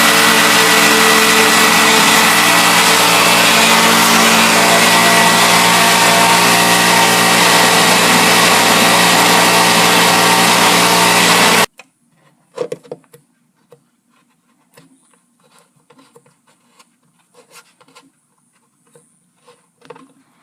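An electric power tool's motor runs loud and steady for about twelve seconds, then cuts off abruptly. Faint scattered taps and clicks follow.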